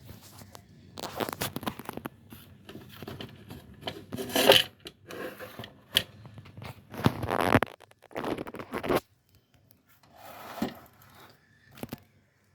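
Valve amplifier chassis being worked out of its cabinet: irregular scraping and rubbing, with a few sharp knocks, loudest about four and a half seconds in.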